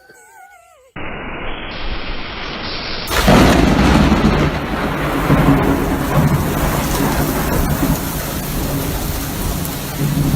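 A brief wavering high-pitched cry, then heavy rain with a deep thunder-like rumble that starts about a second in and swells louder about three seconds in.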